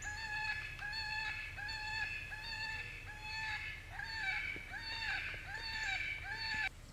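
FoxPro CS24C electronic predator caller playing a looped animal distress call: short arching cries with a stack of overtones, about one and a half a second, evenly repeated. It cuts off suddenly near the end.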